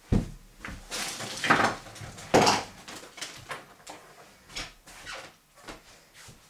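Knocks, clatters and rustling as someone gets up from the table and moves about, with two louder scraping or rustling sounds about one second and two and a half seconds in, then fading to scattered small knocks.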